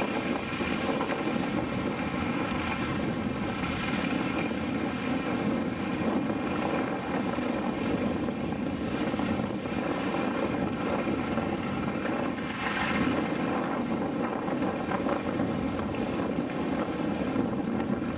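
Wind buffeting the microphone, with a steady rushing hum, while gliding down a groomed ski slope.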